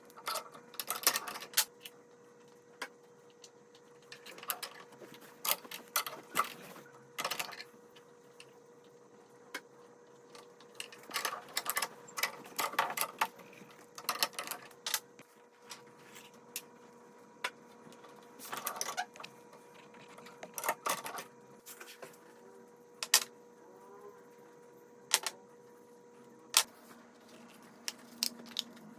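Irregular light knocks and clicks of small wooden parts being handled on a workbench, some in quick clusters, over a faint steady hum.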